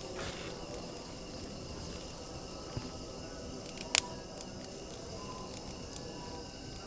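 Campfire burning at night with occasional sharp wood pops, the loudest a double snap about four seconds in. Faint steady high insect tones run under a low hiss.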